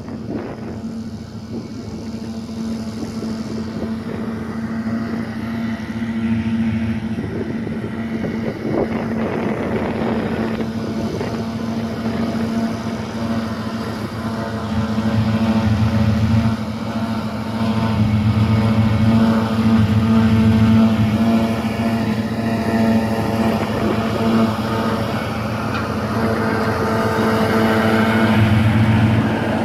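Self-propelled forage harvester running under load as it chops grass and blows it into a silage trailer, with the accompanying tractor: a steady heavy engine drone with a constant hum, growing louder through the clip.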